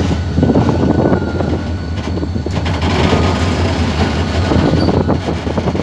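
Boat engine running steadily: a loud, low drone with a fast, rough chugging pulse.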